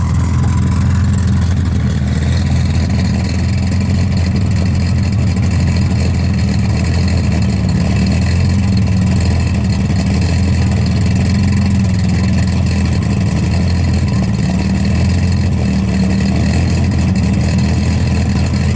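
GTA Spano supercar's V10 engine idling steadily close up, a loud low note that holds even with no revving.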